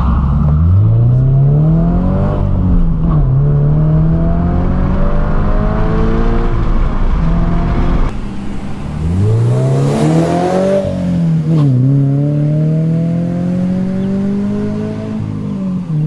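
2022 Subaru BRZ's 2.4-litre flat-four accelerating through the HKS Spec L exhaust, revs climbing then dropping at an upshift, twice over. The tone is muffled, which the owner puts down to too much muffling in an exhaust built for the first-gen car's smaller piping.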